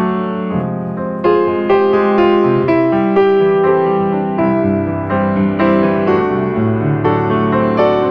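Background piano music: a gentle melody of held notes over lower accompanying notes.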